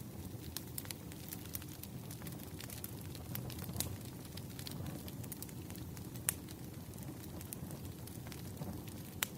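Wood fire burning, a steady low rumble with irregular sharp crackles and pops from the burning logs, a few louder snaps among them.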